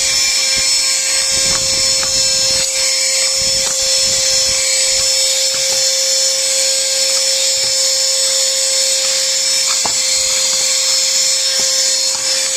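GOGOING cordless handheld vacuum running steadily with a constant high motor whine and hiss, its skinny wand sucking dust from between the leaves of a radiator. A few light knocks come through as the wand meets the metal.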